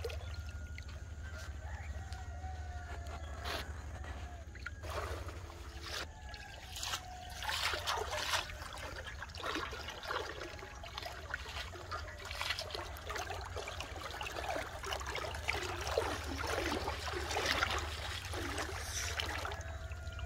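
Shallow river water sloshing and splashing in irregular bursts as a person wades through it, busier through the second half, over a steady low hum.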